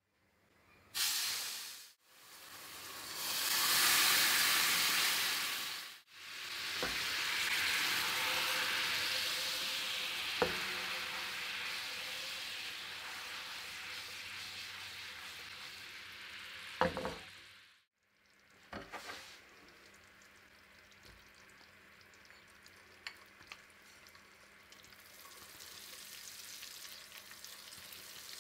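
Sugar and milk sizzling and boiling hard in a hot nonstick pan, loudest in the first few seconds, with a couple of sharp knocks of the pan on the hob. In the second half the bubbling settles to a quieter fine crackle.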